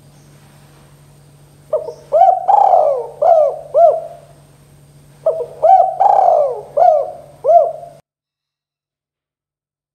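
Spotted dove (tekukur) cooing: two phrases of about five hooting notes each, each with a longer note in the middle, the second phrase starting about five seconds in. The sound cuts off abruptly about eight seconds in.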